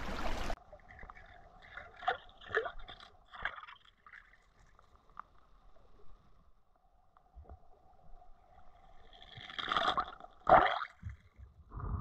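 Water heard from a camera microphone submerged in a shallow rocky river: the open-air rush of the stream cuts off abruptly as the camera goes under. After that come muffled underwater gurgles and faint knocks, with two louder gurgling surges near the end.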